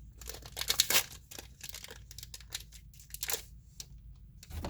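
A trading-card booster pack wrapper crinkling and tearing as it is opened by hand. It comes as a series of short rustles and crackles, loudest about a second in.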